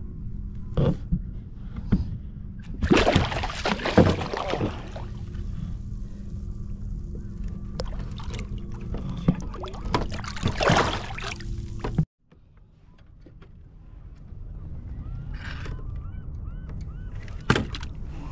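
A small hooked salmon thrashing and splashing at the water's surface beside a kayak, in two bouts a few seconds apart, over a steady low rumble. The sound cuts off abruptly about two-thirds of the way in; after that only low background noise is left, with a single knock near the end.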